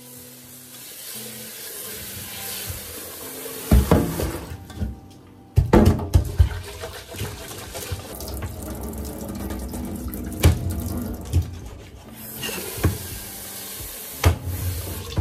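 Tap water running into the metal inner pot of a rice cooker as rice is rinsed by hand, with several sharp knocks along the way.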